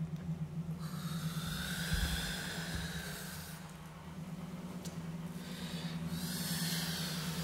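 Experimental electroacoustic music: a steady low drone with two long, breathy hissing swells over it, one about a second in and one near the end.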